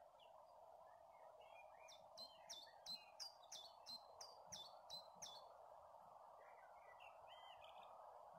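Faint songbird song: a run of about ten quick repeated high notes, about three a second, with quieter chirps before and after, over a steady background hiss.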